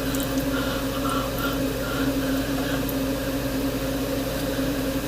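A steady machine hum with an even hiss over it, and faint voices from a television underneath.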